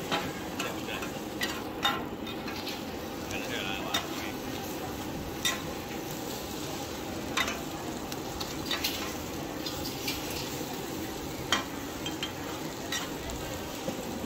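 Egg frying and sizzling in a large wok for an oyster omelette, with two long-handled metal turners scraping and clinking against the pan every second or two as the egg is stirred and broken up.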